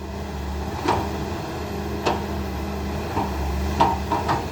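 Backhoe's diesel engine running steadily, with four sharp clanks from the working machine.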